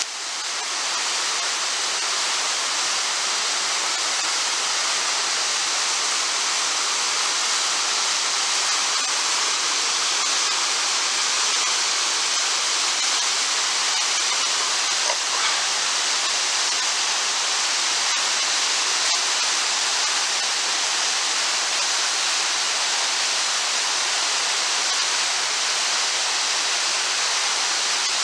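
River rapids in high, fast water: a steady, unbroken rush of white water churning over rocks and past a concrete channel wall.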